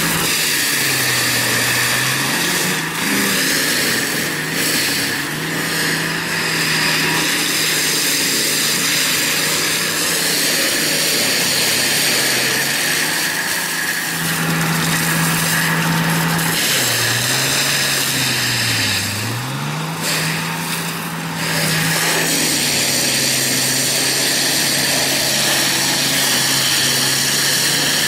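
Tracked forestry mulcher running under load, its diesel engine note dipping as the cutting drum bites into brush and then recovering, about a second in and again more deeply around two-thirds of the way through, over a steady high whine.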